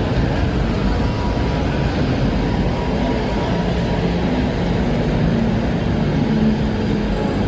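Steady rumble of a moving train, with a faint wavering hum under it.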